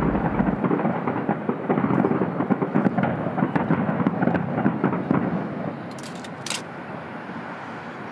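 Fireworks crackling densely in rapid small pops over a rumbling echo. The crackle fades and thins out about five or six seconds in, leaving a few faint sharp pops.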